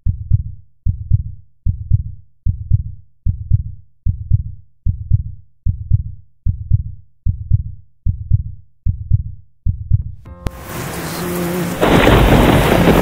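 Heartbeat sound effect: low double thumps at a steady pace of about one every 0.8 seconds for some ten seconds. Then rain fades in, and about two seconds before the end a loud rumble of thunder over heavy rain takes over.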